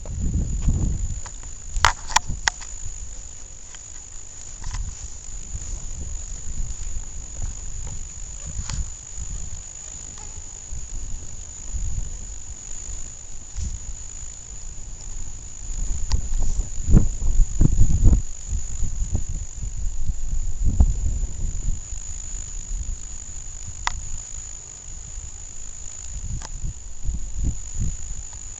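Steady high-pitched chorus of crickets and other night insects. Irregular low rumbling, loudest about two-thirds of the way through, and a few sharp clicks sound over it.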